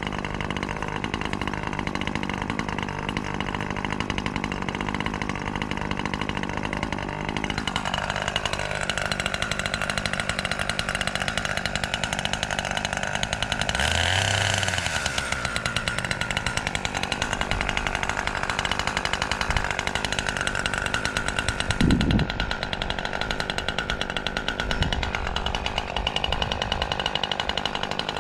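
Brand-new Husqvarna 540 XP Mark III two-stroke chainsaw running at high revs while cutting a seasoned log, its AutoTune not yet set. The engine note drops and wavers as the chain loads in the wood, with a brief thump about 22 seconds in.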